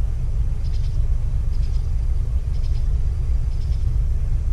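Steady low outdoor rumble with a faint high chirping call repeating about once a second.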